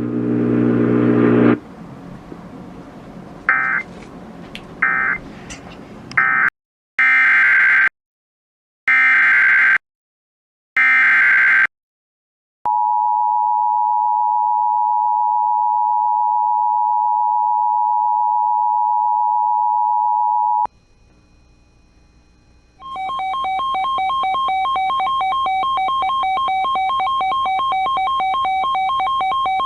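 Emergency Alert System tones: a few short digital data bursts, then three longer buzzing data bursts of an alert header about a second apart. Then comes the two-tone EAS attention signal, held steady for about eight seconds. After a short gap, a second steady alert tone with several pitches sounds through to the end.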